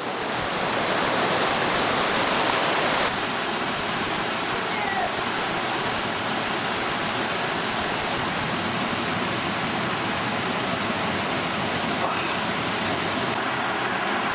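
Waterfall crashing into its pool: a steady, dense rush of falling water, slightly quieter after about three seconds.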